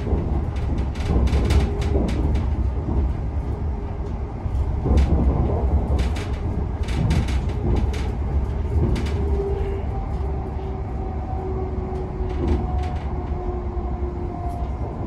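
Interior running noise of a Class 720 Aventra electric multiple unit at speed: a steady low rumble of wheels on rail with irregular clicks and knocks. Over it runs a faint electric traction whine that eases slightly lower in pitch in the second half.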